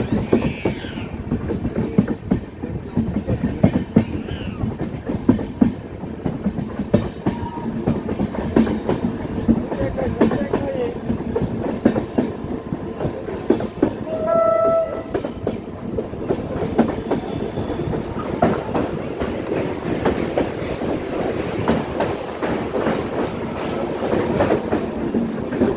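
Train wheels clattering over the rail joints as the train runs along, a dense, uneven clack that goes on without a break.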